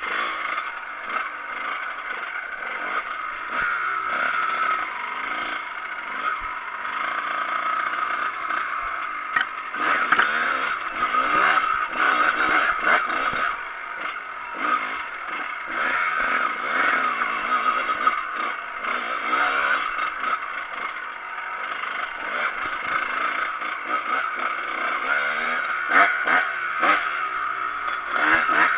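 Kawasaki KX125 two-stroke single-cylinder dirt bike engine running under the rider, its pitch rising and falling as the throttle is worked, with clatter and rattling as the bike runs over rough dirt trail. A few sharp knocks near the end.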